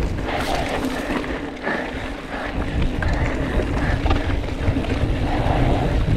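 Mountain bike descending a dry dirt singletrack at speed: wind rushing over the handlebar camera's microphone, knobby tyres rolling over dirt and the bike rattling over bumps, with a steady low hum underneath.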